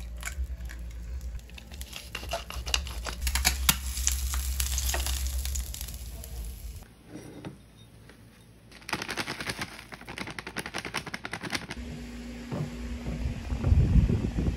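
An egg frying in hot oil in a pan, sizzling and crackling, in two stretches with a short quieter gap between. Near the end, lower rubbing and bumping sounds on a table.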